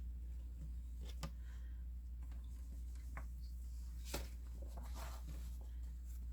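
Quiet handling of a cross-stitch kit's materials: a few light clicks and brief rustles over a steady low hum.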